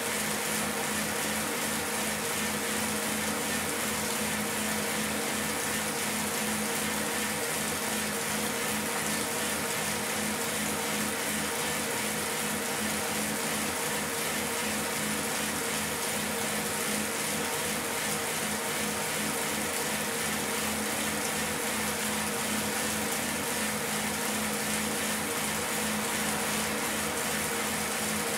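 Rear-wheel turbo trainer whirring steadily as the rider pedals: the rear tyre spinning on the trainer's roller and resistance unit, a constant hum with an even rushing noise.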